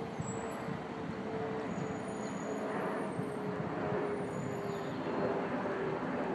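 Steady distant engine noise with a faint wavering hum.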